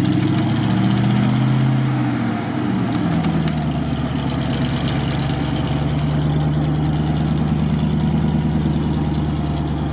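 GAZ-66 truck's engine working in deep mud, the revs rising and falling for the first couple of seconds, then settling into a steady, lower running note about three seconds in.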